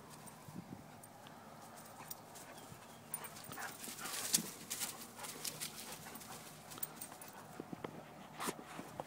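Dogs scuffling in rough play, with scattered knocks and patters of movement. The loudest is a sharp knock about four seconds in, and another comes near the end.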